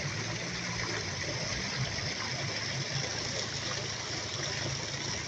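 Small stream running over rocks: a steady, continuous rush of water, with a low hum underneath.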